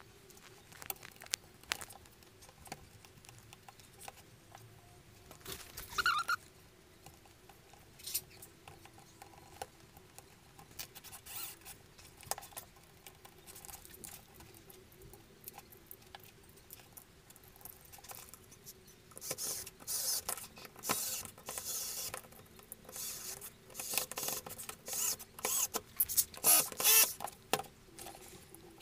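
Hands handling and fitting together the plastic parts of a cordless drill: scattered clicks, taps and scratchy scraping of plastic, sparse at first, then a busy run of rapid clicks and rustling from about two-thirds of the way in.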